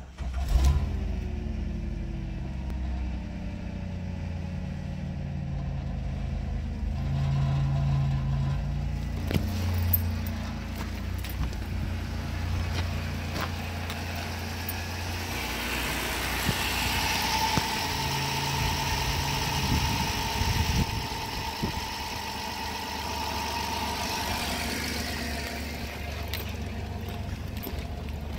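2007 Dodge Caravan's 3.3-litre V6 starting and catching, its speed falling away over the first few seconds as it settles to a steady idle. Partway through, a higher, steady whine from the engine bay joins the idle.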